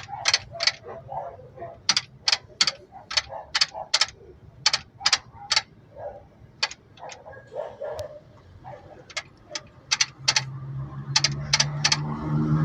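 Chrysler 300 front suspension's worn upper ball joint clicking and knocking repeatedly as the suspension is worked, sharp clicks coming several a second in irregular runs: the sign of a damaged ball joint. A low steady hum comes in near the end.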